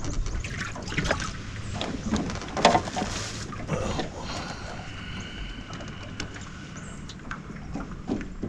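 Scattered knocks, clicks and rustles as a crappie is unhooked and handled in a small fishing boat, with the loudest knocks in the first three seconds.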